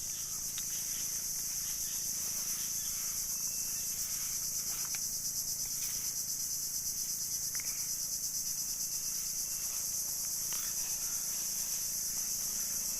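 Steady high-pitched insect chorus with a fast, even pulse, with a few faint ticks beneath it.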